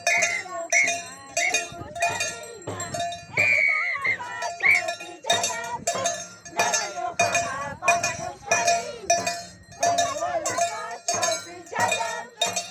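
Andean carnival music: a tinya hand drum and a ringing, bell-like metal percussion struck in a steady beat of about two to three strokes a second. Over it, voices sing high, wavering lines.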